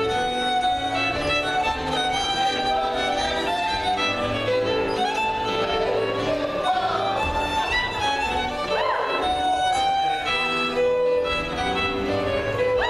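Live contra dance music: a fiddle playing a dance tune over keyboard accompaniment.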